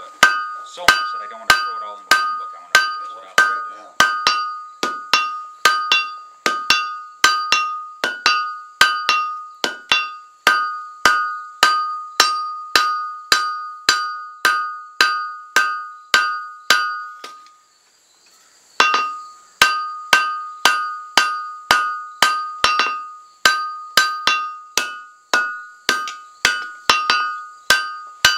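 Blacksmith's hand hammer striking red-hot steel on an anvil, about two blows a second, each blow leaving the anvil ringing. The hammering stops for about a second two-thirds of the way through, then goes on at the same pace.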